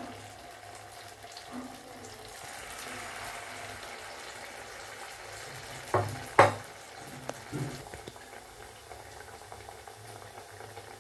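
Batter-coated banana slices sizzling steadily in hot oil, with two sharp knocks close together about six seconds in and a softer one a second later.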